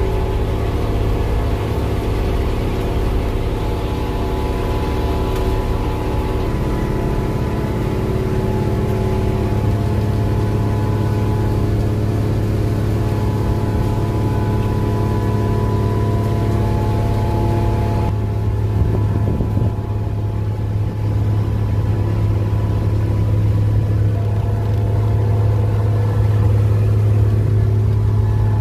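Railway ballast regulating machine's diesel engine running steadily, heard from inside its cab as a loud drone with a deep hum and several steady higher tones. About two-thirds of the way through the higher hiss drops away abruptly while the drone carries on.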